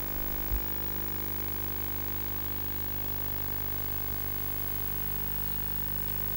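Steady electrical hum and buzz on the microphone and sound system, with a brief low thump about half a second in.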